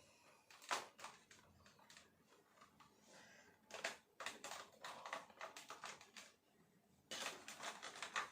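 Faint, irregular clicking and tapping of hard plastic figure parts being handled and fitted together, with one sharper click about a second in and a quicker run of clicks near the end.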